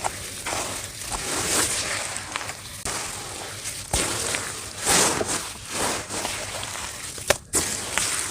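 Dry dirt clumps crumbling and being crushed: an uneven run of crunches and gritty crackles, with a few louder crunches and a brief abrupt drop near the end where one clip cuts to the next.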